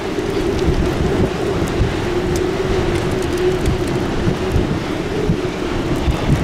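Strong thunderstorm wind rushing and buffeting the microphone, with a steady drone underneath.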